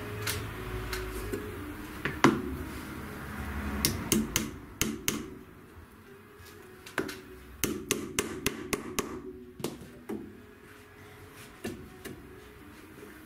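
Upholsterer's tack hammer striking tacks into the wooden frame of an old voltaire armchair. Scattered single taps, the loudest about two seconds in, with quick runs of taps around the fourth second and again between the seventh and ninth seconds.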